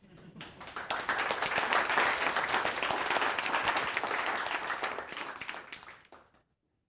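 Audience applauding, a dense patter of many hands that swells over the first second, then dies away and cuts off about six seconds in.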